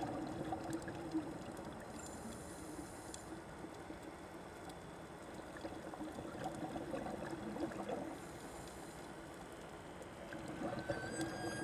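Water trickling and flowing, an uneven running-water sound. Near the end a held musical tone comes in.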